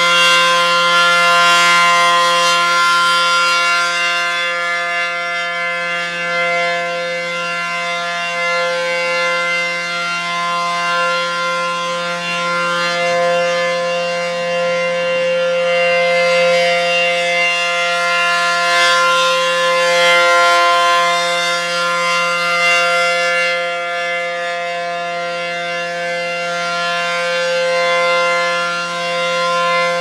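ACA P-10 outdoor warning siren sounding a steady chord at full pitch, its level swelling and fading about every nine seconds as the rotating head turns toward and away.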